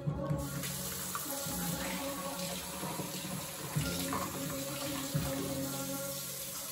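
Kitchen faucet turned on about half a second in, then running in a steady stream into a stainless steel sink as strawberries are rinsed under it.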